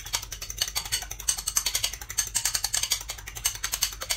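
An egg being beaten by hand in a small ceramic bowl: quick, steady clicking of the utensil against the bowl.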